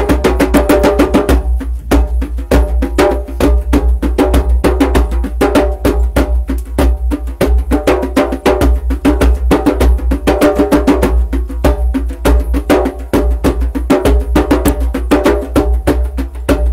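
Two hand drums played with bare hands in a fast, steady rhythm, many strokes a second.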